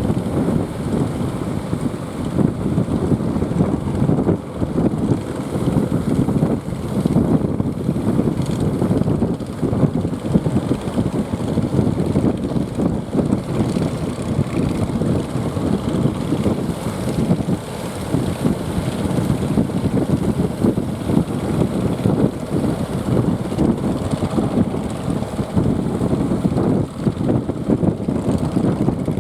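Strong wind buffeting the microphone: a loud, gusting rumble that rises and falls throughout.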